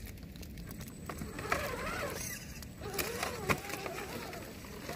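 Redcat Gen8 Scout II RC crawler's electric motor and drivetrain whining up and down with the throttle as it crawls over wet forest litter, with a few sharp clicks and snaps, the loudest about three and a half seconds in.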